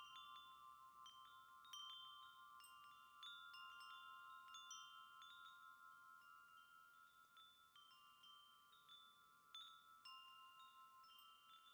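Wind chime ringing quietly, its tubes struck irregularly several times a second, each note ringing on and overlapping the next.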